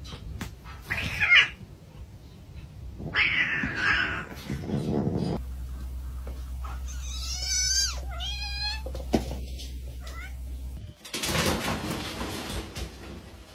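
Cats meowing: a few drawn-out, wavering yowls about seven to nine seconds in, over a steady low hum, with shorter noisy bursts before and after.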